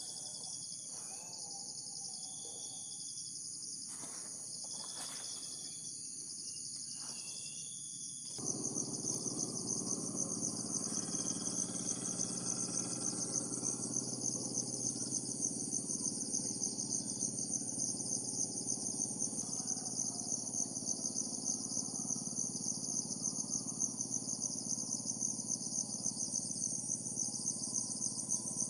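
Steady high-pitched chorus of insects, cricket-like and pulsing. About eight seconds in, the sound gets suddenly louder as a low, steady droning joins underneath.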